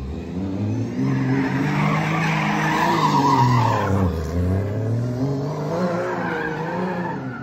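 A car drifting: its engine revs rise and fall while the rear tyres squeal and skid on the pavement. The tyre squeal is loudest about two to three seconds in.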